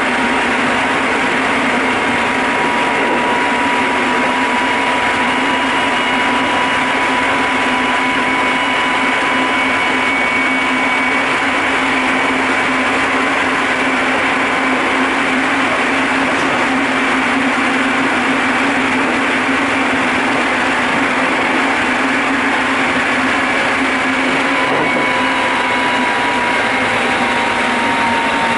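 Running noise of a Keikyu 800 series electric train car, heard from the floor above its bogie: a steady rumble of wheels on rail with a steady whine that drops slightly in pitch near the end.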